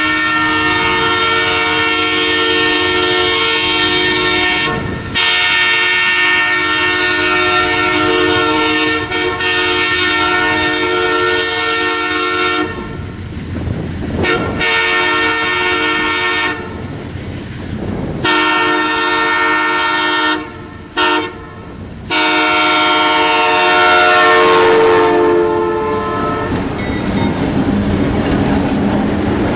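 A freight locomotive's Nathan M3 air horn, sounded in a series of long chord blasts with a short toot about 21 s in, getting louder as the train approaches. The last blast ends about 26 s in with its pitch dropping as the locomotive passes, leaving the engine and the wheels clacking over the rail joints.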